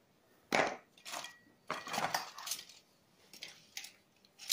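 Aluminium rods and brackets of an HD U19 digital TV antenna clinking and rattling against each other as the antenna is handled and lifted, in a string of short knocks.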